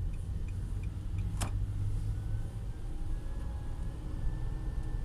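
Mitsubishi eK X's CVT giving a thin whine that rises in pitch as the car pulls away, then holds steady: the abnormal transmission noise the owner is recording. Before it, turn-signal ticks at about three a second stop about a second in, followed by one sharp click.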